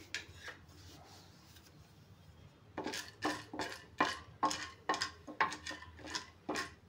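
Wooden spatula stirring chana dal in a small steel pan, scraping and knocking against the metal in quick strokes about three a second, starting about three seconds in.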